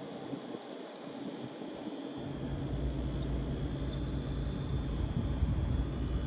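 GE GFE26JEMAFDS refrigerator's condenser fan running steadily; about two seconds in, a low steady hum sets in and keeps going as the compressor starts and runs, a sign that the newly replaced start relay and run capacitor are working.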